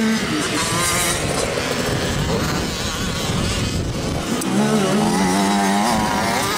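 Small two-stroke KTM 85 SX motocross bikes revving as they ride, the engine pitch rising and falling with the throttle.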